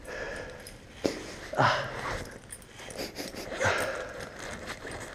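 A man's heavy, wheezy breathing: two loud breaths about two seconds apart, with a light click about a second in.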